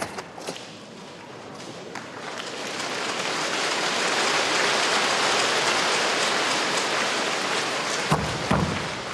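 Arena audience applauding, swelling up and then dying away, with two thuds of bare feet on the competition mat near the end.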